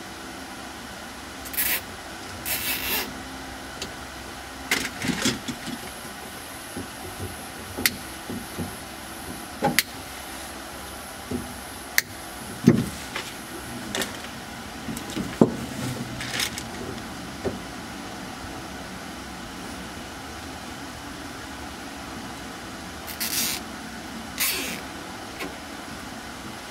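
Hands working on car wiring: scattered clicks, knocks and handling noises, with a few short rasping swishes near the start and again near the end, over a steady background hum.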